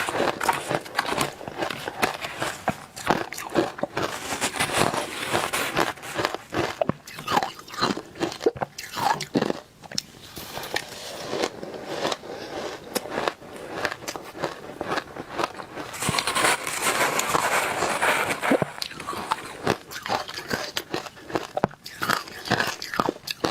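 Close-up biting and chewing of matcha-powdered ice, with dense, irregular crunching throughout and a thicker stretch of crunching about two-thirds of the way in.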